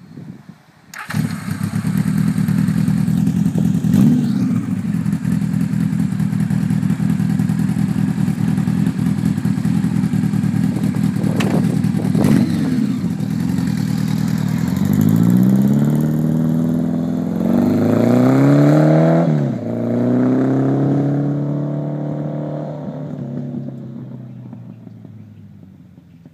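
Goldwing motorcycle with a 1980 Honda 1100 flat-four engine and aftermarket sport bike mufflers, running loud and steady close by. It then pulls away, the exhaust note rising in pitch through a gear change and fading as it rides off.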